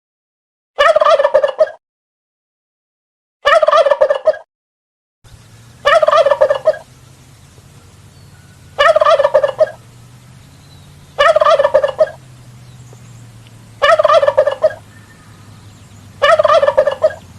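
Turkey gobbling: seven gobbles, each about a second long, repeated about every two and a half seconds. A faint low hum runs underneath from about five seconds in.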